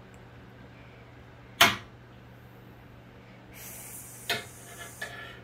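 A single sharp knock about one and a half seconds in, the loudest sound, followed a couple of seconds later by a soft rustle and a few lighter clicks.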